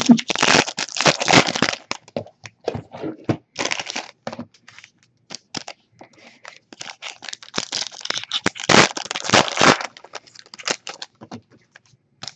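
Foil trading-card pack wrappers crinkling and tearing as packs are handled and opened, in irregular bursts with short gaps, loudest near the start and again toward the end.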